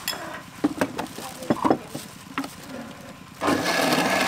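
Plastic cups and containers knock and click as they are handled. About three and a half seconds in, an electric countertop blender switches on and runs steadily.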